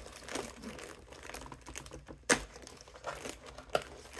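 Scattered light clicks and paper rustling as protective paper is torn and pulled off a new binder's gold metal rings, with one sharp click about two seconds in.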